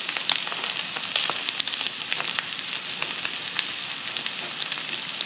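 Ribeye searing in hot beef tallow and butter in a skillet: steady sizzling, scattered with sharp little pops and crackles of spitting fat.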